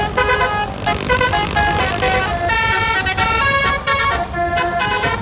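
Bus basuri (telolet) musical air horn playing a quick melody, one held note after another changing pitch every few tenths of a second, over a low rumble.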